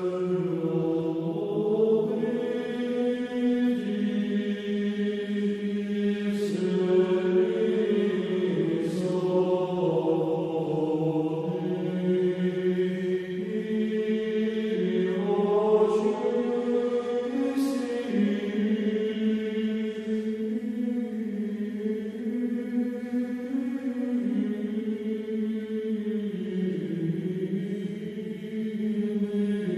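Orthodox liturgical chant used as background music: voices sing long held notes that move step by step over a lower sustained part.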